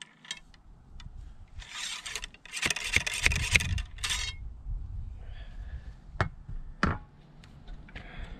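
Wooden ramrod rasping down the bore of a .50 calibre Thompson Center Hawken flintlock rifle, forcing a cloth-patched round ball down onto the powder in two long strokes. Two sharp knocks follow near the end as the ramrod is handled and put away.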